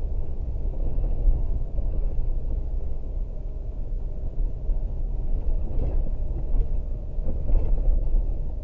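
Vehicle driving slowly on a dirt road, heard from inside the cabin: a steady low rumble of tyre and road noise with the engine beneath, and a few light knocks from the track in the second half.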